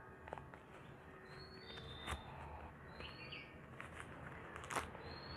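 A bird gives a short rising chirp about every two seconds, three times. Two sharp clicks come in between as a small black microphone pouch is handled.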